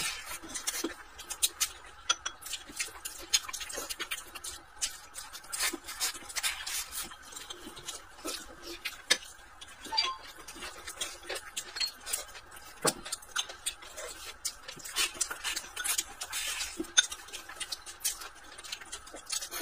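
Close-up eating sounds: chewing and mouth noises, with wooden chopsticks clicking and scraping against a ceramic rice bowl in irregular small taps.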